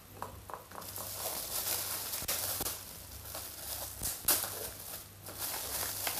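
Plastic bubble-wrap bag crinkling and rustling as it is handled and opened, with a few sharp clicks, the loudest about four seconds in.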